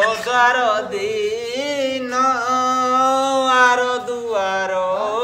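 A voice singing a slow, chant-like melody with long held, wavering notes, pausing briefly near the end before starting a new phrase.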